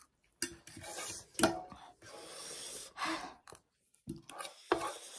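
Close-up eating noises: a metal fork scraping and clicking against a plastic plate, with mouth sounds of eating noodles.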